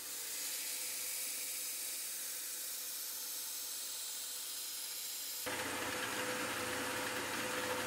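Belt grinder's abrasive belt grinding the bevel of a forged cu mai (copper and high-carbon steel) knife blade held in a bevel jig: a steady, bright hissing rasp. About five and a half seconds in, the sound changes abruptly to a fuller, steady running noise with a low hum.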